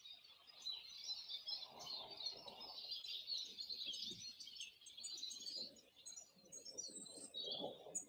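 Small garden songbirds twittering and chirping in a dense, continuous run of quick high notes.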